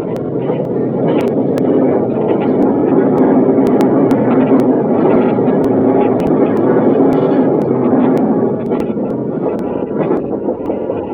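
Train running, a steady rumble that swells a little through the middle, recorded on a feature phone's microphone so it sounds muffled and coarse.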